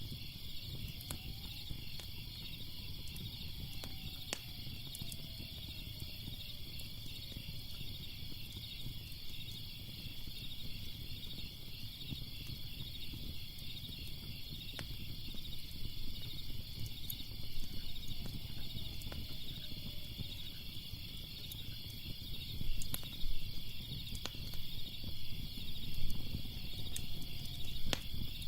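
Crickets chirping steadily over a crackling fire: scattered sharp pops and a low rumble of flames, with a few louder crackles near the end.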